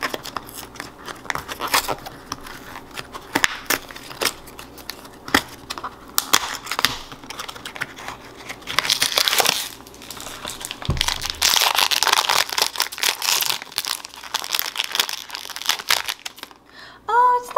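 Hands opening a cardboard blind box and crinkling and tearing open a foil wrapper around a small figure: scattered crisp crackles, with longer stretches of dense crinkling about halfway through and again a little later.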